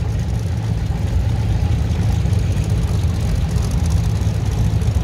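Engines of vintage farm tractors running at low parade speed, a steady low rumble, as a small red tractor drives past close by with others following.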